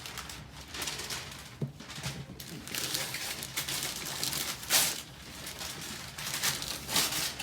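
Gift wrapping and packaging being handled and torn open, rustling and crinkling in irregular bursts, with one sharper, louder rip or crinkle near the middle.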